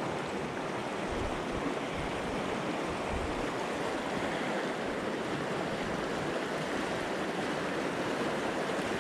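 Steady rush of a fast-flowing river current.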